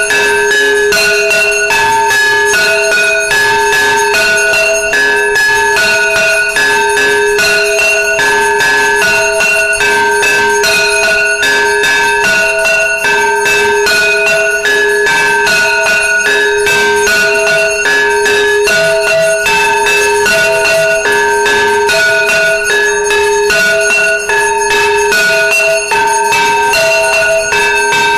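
Temple bells ringing rapidly and without a break for the arati, over a steady held ring, with higher bell tones alternating about once a second.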